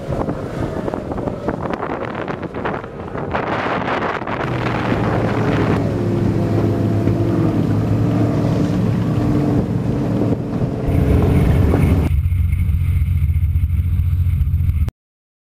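Motorboat engines running at speed, with wind buffeting the microphone and rushing water over the first few seconds. About four seconds in, a steady engine drone takes over, deepening into a heavier, even hum near the end before it cuts off suddenly.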